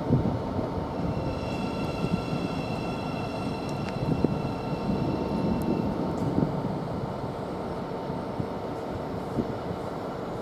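Thameslink Class 700 electric multiple unit moving through the station, a steady rumble of wheels on rail. A faint high whine comes in about a second and a half in and fades out around six seconds.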